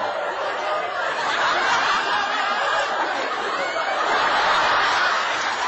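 A large crowd of many voices shouting and calling out at once, a dense steady hubbub with no single voice standing out.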